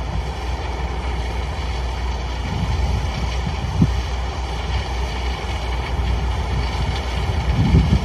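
Corn-harvesting machinery running steadily: a deep engine rumble under several steady whining tones, with a short knock about four seconds in and a brief swell of rumble just before the end.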